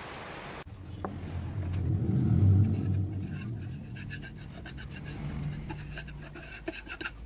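Homemade disc sander driven by a treadmill massager motor, running with a low hum while wood is rubbed against it. The sound swells to its loudest about two and a half seconds in, then eases off.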